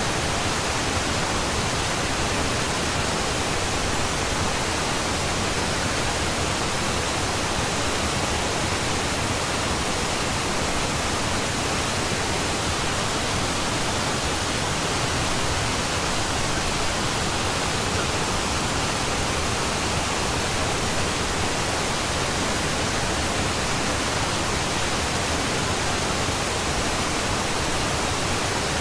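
Steady, unchanging pink-noise hiss that fills the whole range evenly, the masking bed of a subliminal affirmation track.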